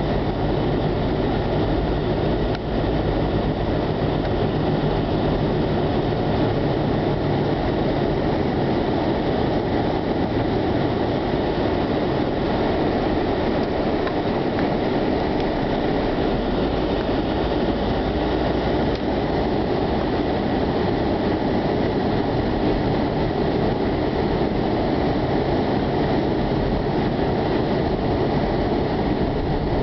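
Blizzard wind blowing hard and steadily: a dense, unbroken rushing noise that is heaviest in the low range.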